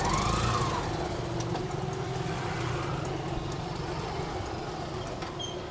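Motor vehicle engines running in street traffic, a steady low rumble with a brief rise and fall in pitch in the first second.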